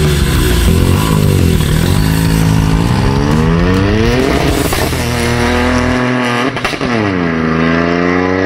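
Turbocharged Toyota Aygo accelerating hard, the engine note climbing with the revs, breaking at a gear change about halfway and climbing again. About two-thirds in, a short cluster of exhaust pops, then the pitch falls away.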